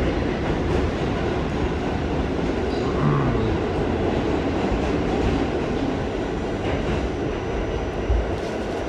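R46 subway train running along the track: a steady rumble of wheels and car noise, with a brief low thump about eight seconds in.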